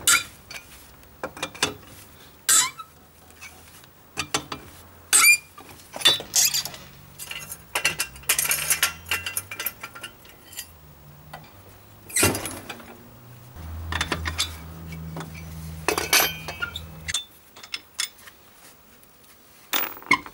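Repeated sharp metal clinks and knocks of a four-way cross wheel brace on the wheel nuts and of a trolley jack being worked under the car, with a low hum for a few seconds past the middle.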